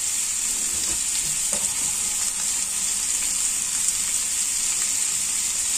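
Roast pork pieces and cubed winter melon sizzling steadily in a hot wok, an even frying hiss with a few light pops.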